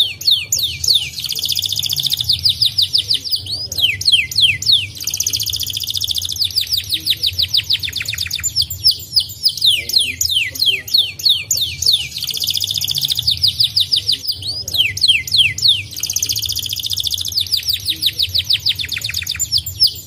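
Domestic canary singing continuously: runs of quick falling whistled notes alternate with dense, buzzy rolls, over a steady low hum.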